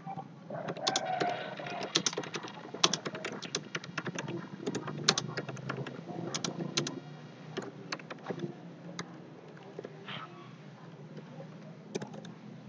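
Typing on a computer keyboard: a quick run of key clicks for the first several seconds, then sparser keystrokes with pauses between them.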